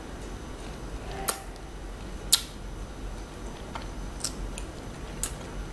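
Close-miked chewing: a few sharp, wet mouth clicks and smacks spaced about a second apart, the loudest a little past the middle.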